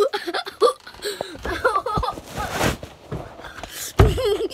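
A child's voice making short wordless sounds amid rustling and knocking of a handheld phone, with a sharp thump about four seconds in.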